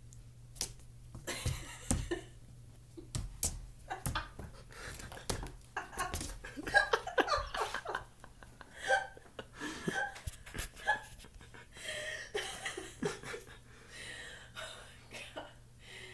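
A person laughing in short bursts and breathing, mixed with sharp taps and knocks from a kitten's paws striking a wall.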